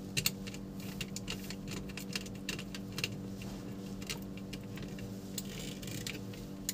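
Light irregular clicks and scrapes of a small screwdriver working the terminal screw of a plastic modular switch while a wire is fitted into the terminal.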